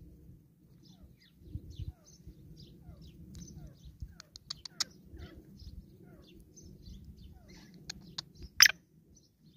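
Birds giving many short, quiet, falling chirps, with a few sharp clicks among them, the loudest about a second before the end, over a low rumble.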